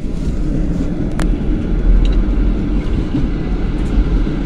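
Steady low rumble of a moving public-transport vehicle, heard from inside the passenger cabin, with one sharp click a little over a second in.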